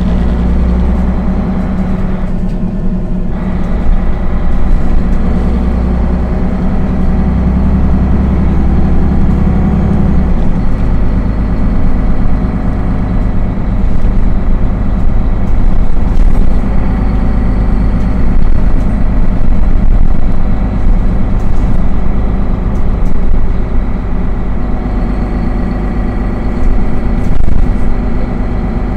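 Solaris Urbino 15 III city bus engine idling steadily while the bus stands. Its deep hum drops down about ten seconds in.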